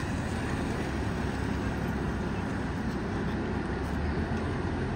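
A fire engine's engine running steadily at the scene, an even low drone with no change.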